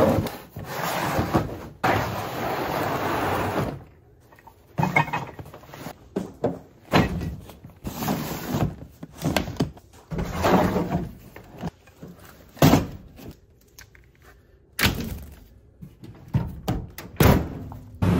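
Plastic storage totes and bags being slid across and set down in a pickup truck bed: a long scrape at first, then a run of shorter scrapes and hollow thunks, with a few sharp knocks near the end.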